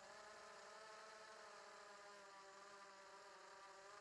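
Faint, steady buzzing whine of a quadcopter's brushless motors and propellers in flight, the pitch wavering slightly.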